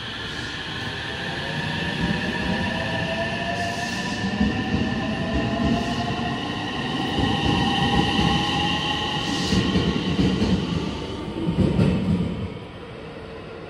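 An electric commuter train pulling out along a station platform: its traction-motor whine sounds in several shifting tones, the lower ones rising as it picks up speed, over the rumble of wheels on rail. Near the end the sound changes abruptly and becomes quieter.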